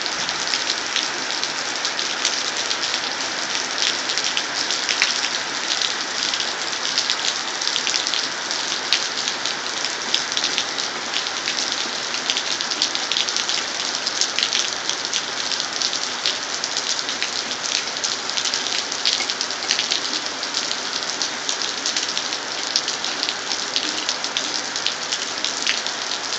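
Heavy rain falling and splashing: a steady hiss thick with the sharp ticks of individual drops striking.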